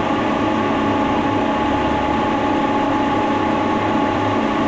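Brown & Sharpe No.2 milling machine, a 5 hp silent-chain-drive machine, running steadily at work with a constant hum and a steady whine.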